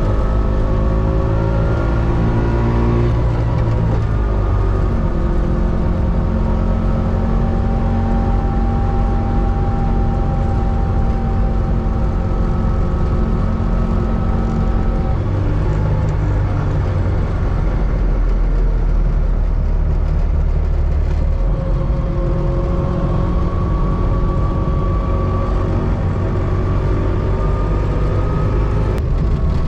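Trabant 601S's air-cooled 594 cc two-stroke two-cylinder engine running under way, with its note shifting in pitch a few times, near the start, about halfway and about two-thirds in.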